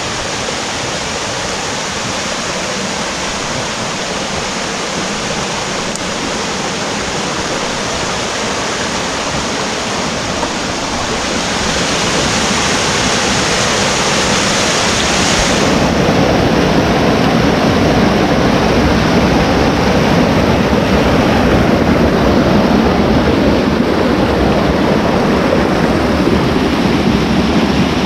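A small mountain stream rushing and splashing over boulders, a steady wash of water that grows louder from about halfway through as the stream is approached.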